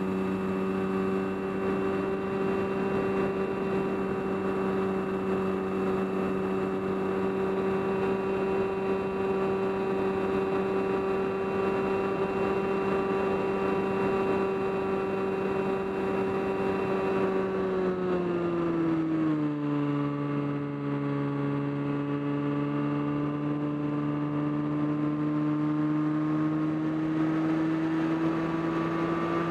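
Motor and propeller of an FPV aircraft heard through its onboard camera: a steady whine that drops in pitch about 18 seconds in as the throttle comes off, then slowly climbs again.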